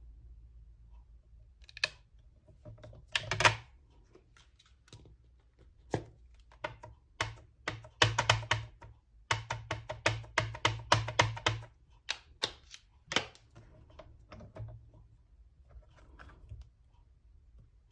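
Hands stamping with a clear acrylic stamp in a stamp-positioning tool: scattered clicks and knocks of the clear plate, stamp and ink pad, with a quick run of taps in the middle.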